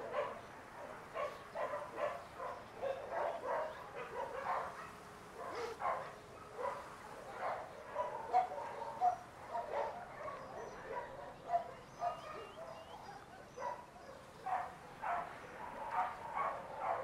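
Dogs barking on and off, many short barks scattered through the whole stretch, from a shelter kennel holding hundreds of dogs.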